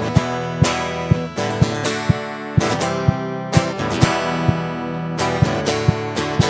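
Acoustic guitar strummed over a foot-played Finhol Stompcon stomp box, which keeps a steady beat of short thumps at about two a second.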